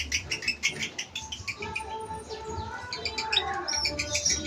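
Lovebird in a long 'ngekek' song: a fast, unbroken run of shrill chattering chirps, many a second, with lower bird calls underneath.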